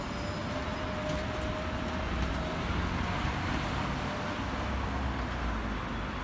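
Road traffic: passing cars make a steady noise with a low rumble. A faint, slowly rising whine runs through the first couple of seconds.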